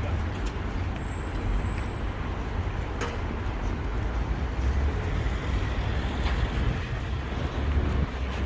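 City street traffic: a steady low rumble of passing road vehicles, with a brief faint high squeal about a second in.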